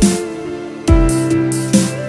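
Electronic music with a steady beat: deep kick drums that drop in pitch, sharp snare hits and held synth notes.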